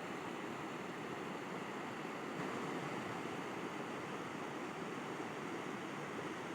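River water flowing, a steady unbroken rushing.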